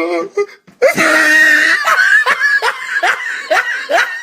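A person laughing hard in a high voice. It starts about a second in and goes on in quick repeated pulses, about three a second.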